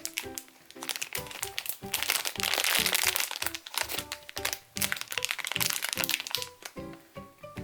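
Background music with a simple melody, over plastic packaging crinkling that is loudest about two to three and a half seconds in and again near six seconds.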